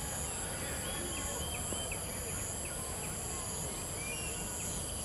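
Outdoor ambience: a steady high-pitched insect buzz with many short chirps repeating every fraction of a second, over a low rumble.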